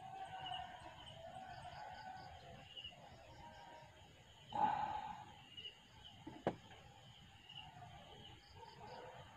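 Faint background of insects chirping, with a single dog bark about halfway through and a sharp click about two seconds later.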